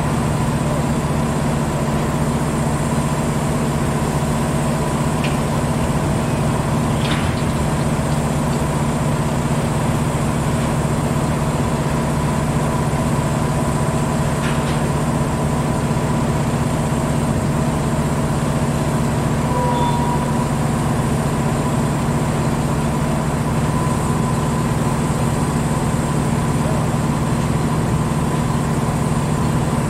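Heavy diesel engine running steadily at a constant speed, with a few faint knocks about five and seven seconds in and again around fourteen seconds.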